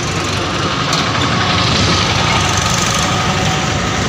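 A motor vehicle's engine running steadily at low speed, growing a little louder about a second in.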